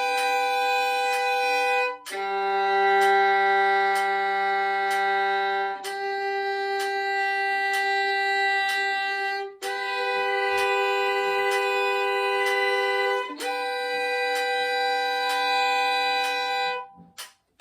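Solo violin playing a G major scale in double stops: long held two-note chords, each sustained for about four seconds, with a short break at each bow change. The last chord stops shortly before the end. A faint, steady tick about twice a second runs underneath.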